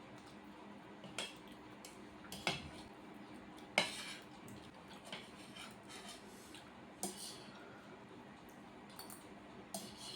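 Cutlery clinking and scraping against a plate or bowl while eating macaroni, in scattered sharp clicks a second or more apart, the loudest about four seconds in.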